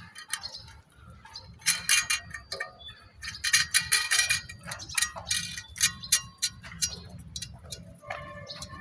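Metal clinking and tapping as a nut is fitted onto a bolt during the machine's installation: a run of short, sharp clinks, some ringing briefly.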